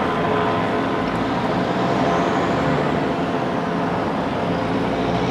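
Steady drone of idling vehicle engines with road noise, holding several constant hums throughout.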